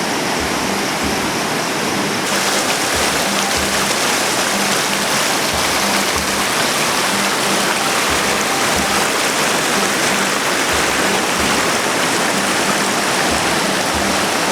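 Mountain river rushing: a steady, loud noise of fast-flowing water.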